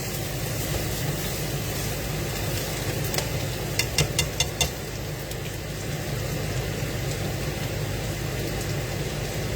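Steady hiss and low hum of a pan cooking on the stove, with a quick run of about five sharp clicks about four seconds in.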